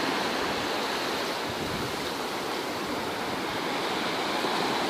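Sea surf breaking and washing up a sandy beach: a steady rush of waves and foam.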